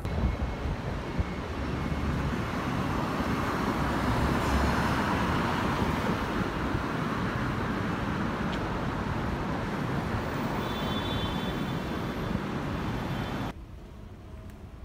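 Downtown street traffic: a steady wash of passing cars and road noise. It cuts off suddenly about 13 seconds in, giving way to a much quieter indoor hum.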